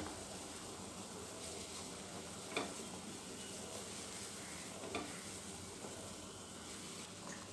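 Pot of tamarind kuzhambu boiling hard, a steady bubbling hiss, with two brief splashes about two and a half and five seconds in as balls of ground chana dal are dropped into the boiling gravy.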